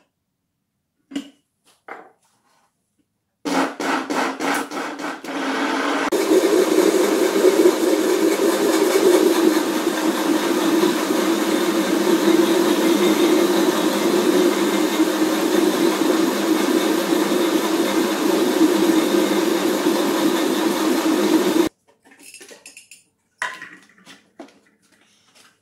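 Countertop blender with a stainless steel jar blending a liquid seasoning sauce. It starts choppy for a couple of seconds, runs steadily for about fifteen seconds and cuts off suddenly. A few light clicks and knocks come before and after it as the jar and lid are handled.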